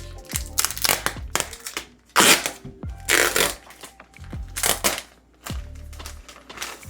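Background music with a deep, steady bass beat, under several loud bursts of rustling and knocking as packaging and gear are handled. The loudest burst comes about two seconds in.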